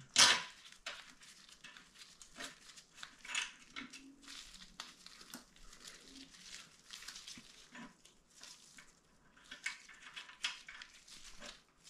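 Small metal clicks, taps and scrapes of bolts being fitted by hand into a Zündapp 517 moped's bottom-bracket and brake-pedal mounting, with one sharper click about a quarter second in.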